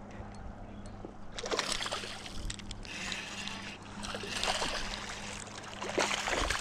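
A hooked fish splashing and thrashing at the water's surface as it is reeled in to the bank, in several splashes over a few seconds.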